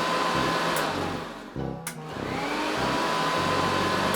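Vacuum cleaner running with a steady rushing noise and a motor whine that rises as it spins up; it cuts out briefly about one and a half seconds in and starts up again.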